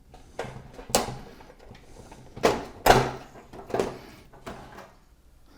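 Plastic bezel parts of an LCD TV being pried and handled during disassembly: a series of sharp plastic clicks and knocks, the loudest about three seconds in.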